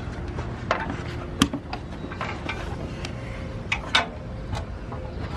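A few sharp knocks and clicks, the loudest about one and a half seconds and four seconds in, over a steady low hum.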